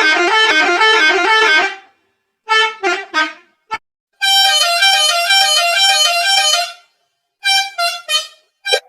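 Musical bus horn playing a stepped melody in several loud, edited bursts with silent gaps between them, some phrases chopped into quick stuttering notes. One longer phrase in the middle is pitched higher.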